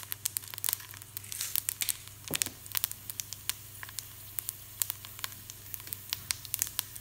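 Hot coconut oil sizzling in a frying pan, with tempering seeds (mustard, cumin and fenugreek) spluttering in irregular sharp pops.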